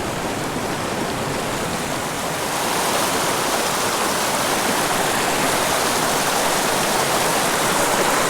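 Steady rush of flowing stream water, growing a little louder about two and a half seconds in.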